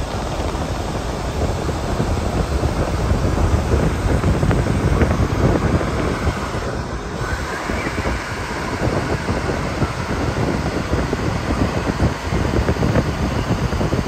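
Wind buffeting the microphone: a loud, gusting low rumble that rises and falls.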